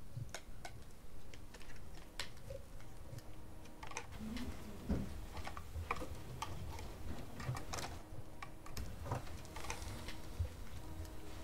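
Irregular clicks and taps of typing on a computer keyboard, over a low steady hum.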